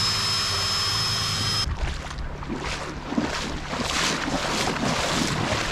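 A fuel transfer pump runs with a steady high whine, pumping fuel out of a drum into the boat, and cuts off abruptly just under two seconds in. After that, wind buffets the microphone over water sloshing in the shallows.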